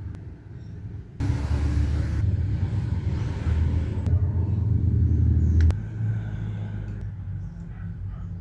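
Motorcycle electric starter motor running, starting abruptly about a second in and cutting off with a click after about four and a half seconds; a quieter low rumble carries on.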